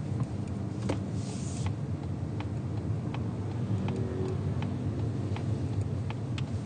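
Steady low rumble inside a 2022 Mazda 3, with sharp ticks about every three-quarters of a second: an abnormal ticking noise in the car. A brief hiss comes about a second in.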